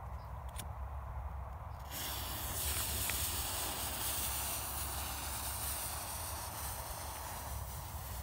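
Dextrin Thunder Master 2 Spanish match cracker's fuse burning with a loud, steady hiss as it throws sparks; the hiss starts abruptly about two seconds in, after a short click.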